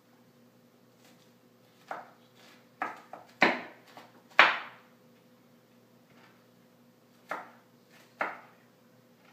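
Kitchen knife chopping red onion on a wooden cutting board: eight uneven knife strikes against the board, a quick cluster of six in the middle (the two loudest among them), then a pause and two more near the end.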